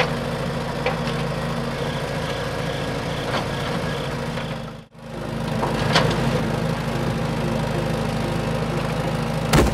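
Small electric gear motors of a homemade toy excavator and toy tractor running with a steady hum. A few sharp clicks come from the machines, the loudest near the end. The hum cuts out briefly a little before halfway, then starts again.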